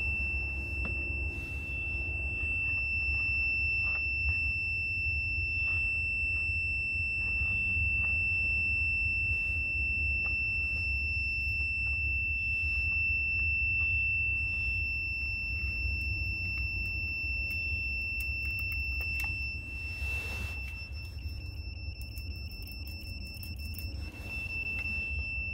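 Magnetic through-wall locator's receiver giving a continuous high-pitched beep, the sign that it is centred over the transmitter on the other side of the wall. A steady low rumble runs underneath, with a few small handling clicks.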